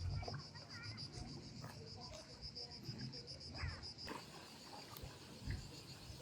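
Outdoor ambience of a steady, rapidly pulsing insect trill, such as crickets, with a few short bird chirps over it.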